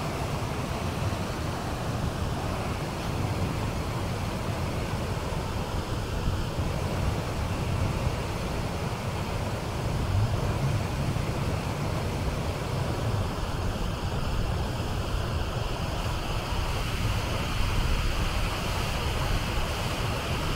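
River water pouring over low concrete weirs: a steady, continuous rushing. Wind buffets the microphone, adding an uneven low rumble.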